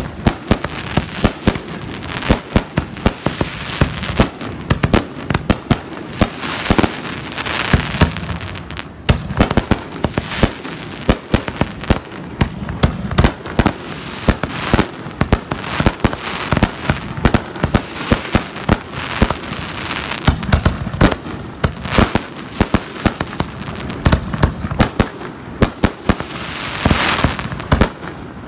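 Consumer aerial fireworks going off in rapid succession: a dense, unbroken string of sharp bangs, several a second, from shells launching and bursting overhead.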